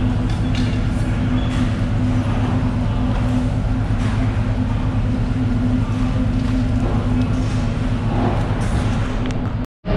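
Machinery running with a steady low hum, with some light clatter over it. It cuts out for a split second near the end.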